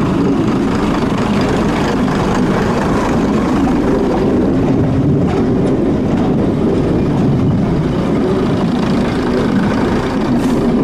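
British Rail Class 101 diesel multiple unit passing close by, its diesel engines running steadily over the rumble of its wheels on the track.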